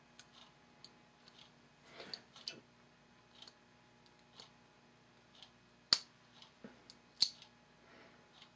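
Scattered small metallic clicks and taps from hands working the steel parts of a partly reassembled Uberti-made Colt 1851 Navy cap-and-ball revolver. The two sharpest clicks come about six and seven seconds in.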